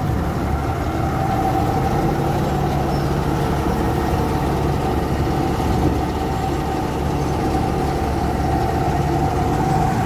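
Diesel engine of a 930 Leopard combine harvester running steadily at close range.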